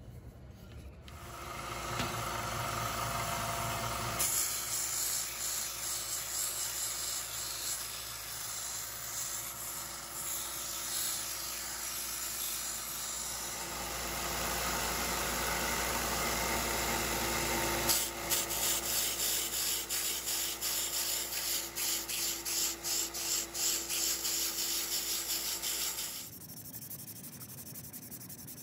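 Small bench belt sander running with an oak hatchet handle held against the belt, a steady grinding. Later the sound pulses about twice a second as the wood is pressed on and lifted off. Near the end the machine sound stops and gives way to quieter hand-sanding with sandpaper.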